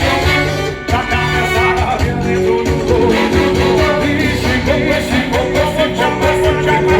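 Loud amplified music with a singing voice over a steady bass beat, played through a large sound system.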